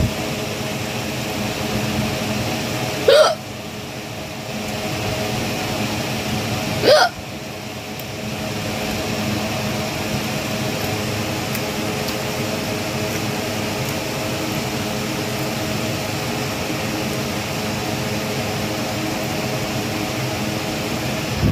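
A woman hiccupping twice, about four seconds apart, each a short sharp hiccup, over a steady mechanical hum. The hiccups come from eating food with very spicy red chilli, in her own view.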